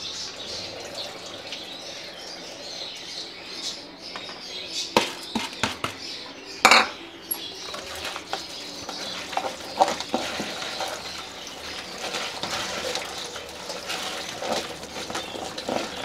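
Soaked seed mix being stirred and handled in vinegar water in bowls, with a wet rustle and scattered clinks and knocks of the containers, the loudest about seven seconds in.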